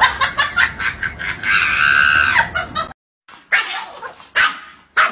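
A pet animal's calls: a run of short, sharp cries with one longer held call about two seconds in. The sound then stops abruptly, and a few separate loud yelps or barks follow, spaced under a second apart.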